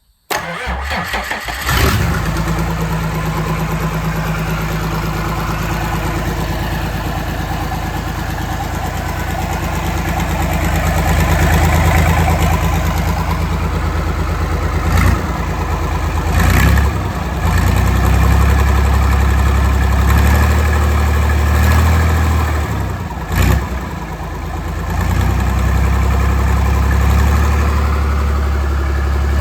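Freshly rebuilt John Deere 3140 diesel engine starting up suddenly and then running steadily, with a few short louder bursts along the way.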